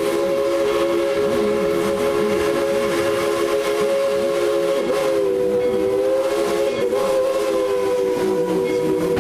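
Steam locomotive whistle blowing one long, steady blast that sounds several notes at once, wavering slightly in pitch around the middle, over the low rumble of the train rolling on the rails.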